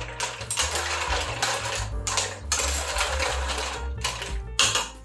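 Mussels in their shells clattering and scraping against a stainless steel pot as they are stirred with a metal spoon, in a run of irregular rattling strokes.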